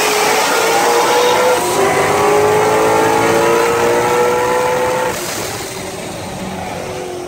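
Cars running side by side at highway speed: an engine's drone climbs slowly in pitch under throttle over heavy wind rush, then eases off and gets quieter about five seconds in.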